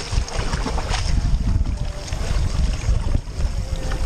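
Wind buffeting the camera microphone in a steady low rumble, with faint splashes of water.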